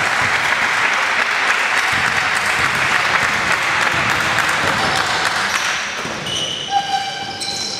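Spectators in a gym clapping, a dense steady applause that dies down about six seconds in. A few short high squeaks from players' shoes on the court follow near the end.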